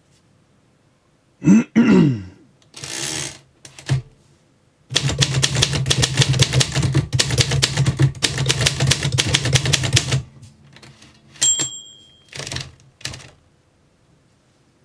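Manual typewriter typing a line in a rapid run of keystrikes lasting about five seconds. A few single clacks and a brief falling sweep come before it. Near the end the carriage bell dings once, followed by two short mechanical sounds.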